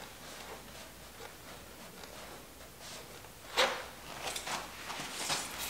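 A single knock about three and a half seconds in, then a run of short scrapes and clicks, as a Honda CB750's front fork legs, with wheel and fender attached, are worked down out of the triple clamps.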